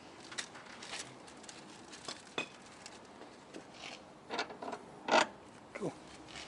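Hand tools clicking and clinking on metal while parts are unbolted in a car's engine bay: a string of separate short clicks, the loudest clatter about five seconds in.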